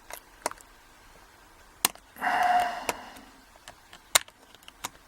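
Pliers clicking and scraping on the metal retaining clip at the back of a euro cylinder core: several sharp metallic clicks and a brief rasping sound with a faint ring a little over two seconds in.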